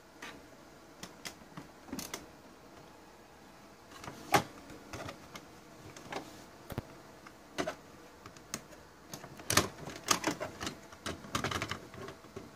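Irregular plastic clicks and knocks from a hand handling the Epson WorkForce WF-2750's print-head carriage and its refillable cartridge set. There is a sharp knock about four seconds in, and the loudest clicks come in quick clusters near the end as the cartridges are worked loose.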